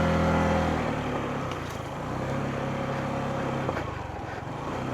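Motorcycle engine running at low speed on a rough dirt road, louder for the first second as it pulls, then steady.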